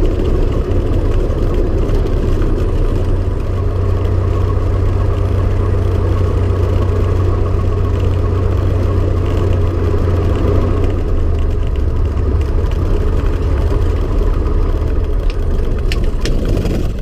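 Cessna 170B's six-cylinder Continental aircraft engine running steadily with a strong low drone.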